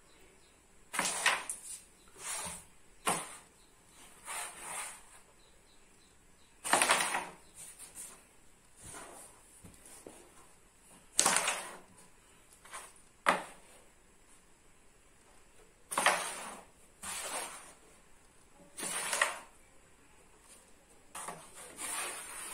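A carrom striker being flicked across the board and clacking into the carrom men: about a dozen sharp clacks at irregular intervals, some in quick pairs, each with a brief rattle or slide after it.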